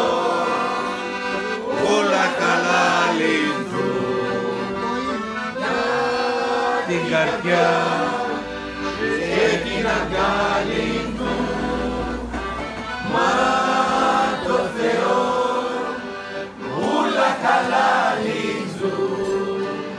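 A mixed group of men and women singing a Greek Cypriot folk song together in phrases a few seconds long, over steady held instrumental chords.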